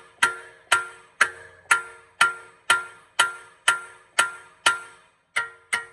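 Hammer blows on steel suspension parts, about two a second, each strike ringing out metallically before the next; the last two come a little closer together.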